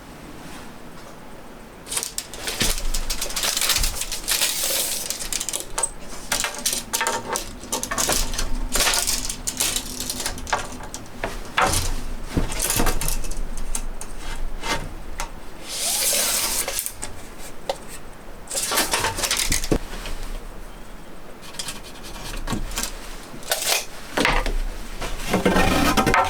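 Cookware and metal utensils clinking and knocking again and again while pots and a pan are handled and stirred on the stove, with short bursts of scraping or rustling noise between the clinks.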